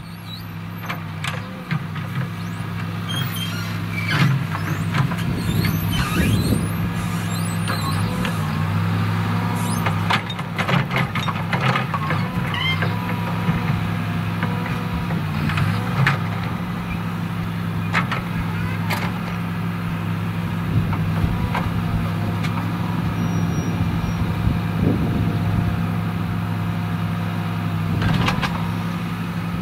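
An engine idling steadily, with scattered sharp clicks and short squeaks over it.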